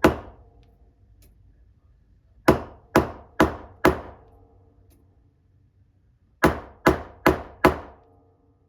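Small hammer tapping a new bushing into a cuckoo clock movement plate against an anvil held in a pin vise: one tap, then two runs of four taps about two a second, each with a short metallic ring.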